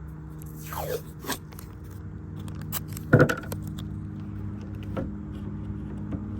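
Light metallic clattering and scraping of parts being handled, with one loud sharp knock about three seconds in, over a steady low hum.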